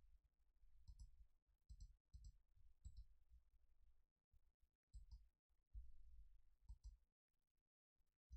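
Near silence, with about six faint computer mouse clicks spread through it, each with a soft low thump.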